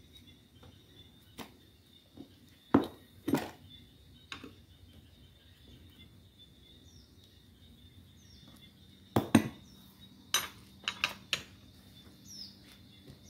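Metal tyre lever clinking and knocking against a motorcycle's cast alloy wheel rim as the tyre bead is pried back over the rim. Scattered sharp metallic clicks, with the loudest pairs about three seconds in and again about nine seconds in, and a quick cluster of smaller clicks just after.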